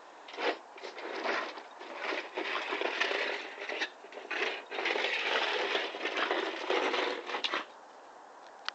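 Upturned plastic laundry basket scraping and knocking across concrete paving slabs as a small dog shoves it with its head. The sound comes in rough bursts from about half a second in and stops abruptly about a second before the end.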